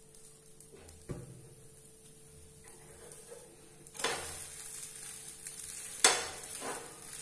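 A metal spatula flips a sweet dosa (pancake) on a hot oiled non-stick tawa, and it sizzles as the uncooked side lands on the pan. The spatula then clacks and scrapes against the pan as it presses the dosa down. The loudest sound is a sharp clack about six seconds in, and a low thump comes about a second in.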